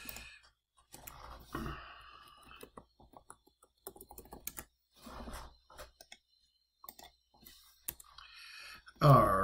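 Typing on a computer keyboard: irregular runs of key clicks. A man's voice starts up right at the end.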